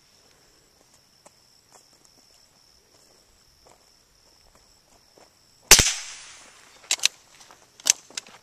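A .22 bolt-action rifle fires once about two-thirds of the way through: a sharp crack with a short echo tail. About a second later come four sharp clicks as the bolt is worked to eject the case and chamber the next round.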